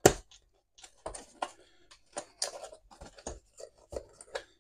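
Cardboard retail box being handled and worked open by hand: a sharp click at the start, then irregular scrapes, rustles and small clicks of card and packaging.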